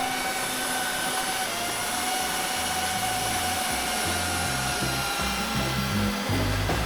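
A DJI Avata FPV drone's propellers whining steadily in flight, fading after about five seconds as background music with a stepping bass line comes in.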